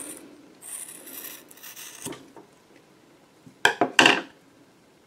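Scissors cutting through the thick rubber arm of a Stretch Armstrong toy: a soft scraping crunch of the blades about a second in, then two short, loud snips about three and a half seconds in as the hand comes off.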